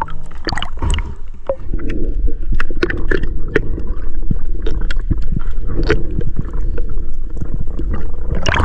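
Water sloshing and gurgling close to the microphone, with many sharp clicks and knocks scattered throughout.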